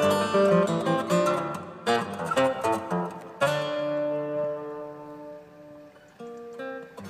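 Background music of a strummed acoustic guitar playing chords; about halfway through, one chord is left to ring and fade before new notes come in near the end.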